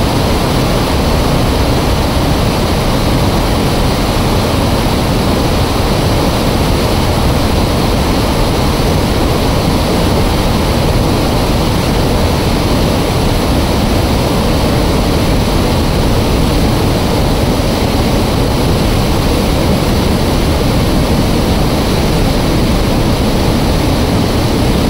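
Water discharging through an open dam spillway: a loud, steady rush of falling water.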